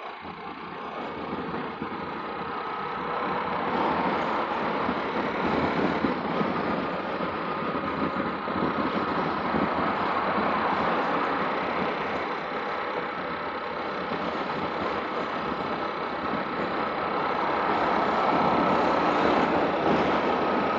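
Motorcycle ridden along a highway: engine running under a steady rush of wind and road noise, growing louder over the first few seconds.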